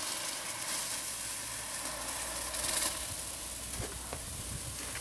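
Liquid poured from a kettle onto Krot drain-cleaner granules packed in a car heater core, hissing and fizzing as the caustic reacts, with a low steady rumble underneath.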